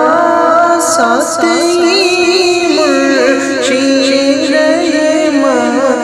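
Music: a slow Hindi ringtone song, with a singer holding long notes that slide and waver between pitches.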